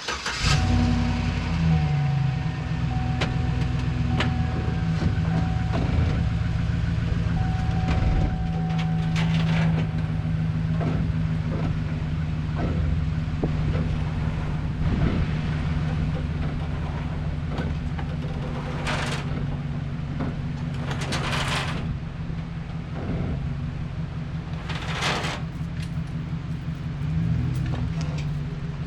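Vehicle engine running at low speed as it is eased forward and manoeuvred. An on-off high beeping tone sounds over roughly the first ten seconds, and a few short rushing noises come later.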